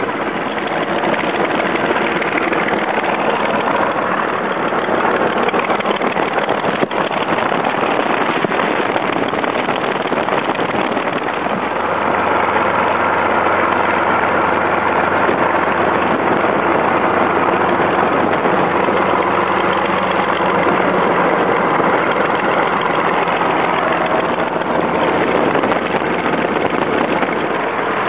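Curtiss P-40 fighter's V-12 piston engine running steadily just after start-up, heard from inside the cockpit, a little louder from about twelve seconds in.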